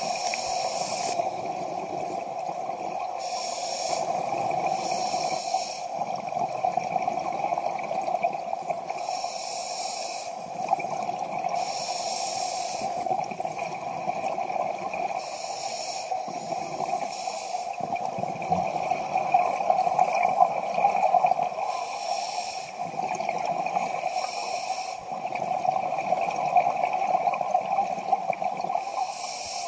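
Scuba diver breathing through a regulator underwater: a hiss and a burst of exhaled bubbles every few seconds, over a steady low hum.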